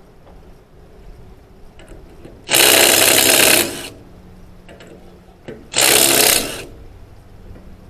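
Dewalt 20V XR DCF887 impact driver hammering on old trailer lug nuts in two bursts, one about a second long and a shorter one a few seconds later, breaking the nuts loose.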